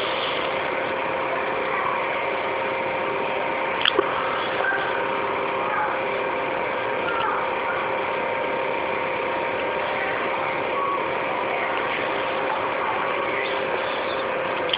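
Steady background hum and hiss with a few faint held tones, and a single sharp click about four seconds in.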